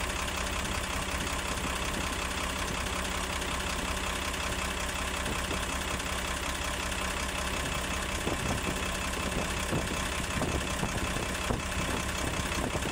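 Diesel engine of a HOWO 380 truck idling steadily, heard close up over the open engine, after an electronic injector has been replaced. A few faint irregular ticks sound in the last few seconds.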